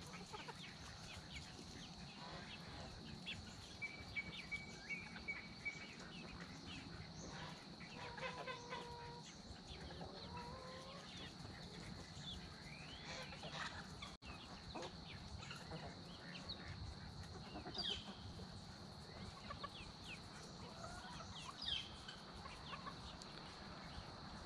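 A flock of chickens clucking softly and calling now and then, faint throughout.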